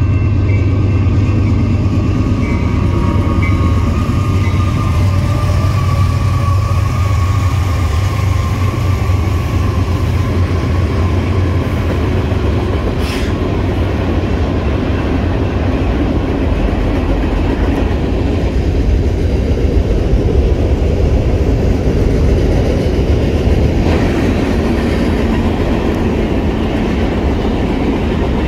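Freight train cars rolling steadily past a grade crossing: a continuous rumble of wheels on rail, heaviest at the bottom, with a low hum that fades after the first half.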